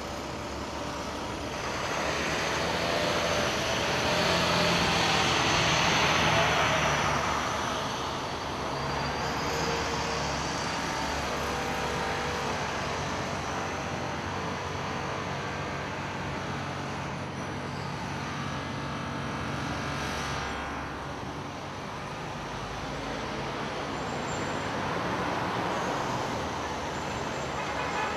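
Busy city street traffic: a steady rush of cars and trucks, with one vehicle passing loudly a few seconds in and more passing later.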